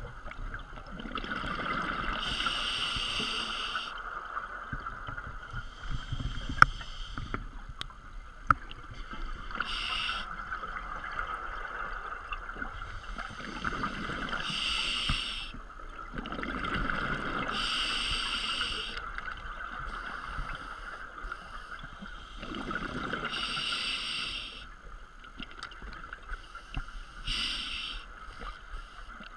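Scuba diver breathing through a regulator underwater: bursts of exhaled bubbles about a second long, every few seconds, over a steady hum.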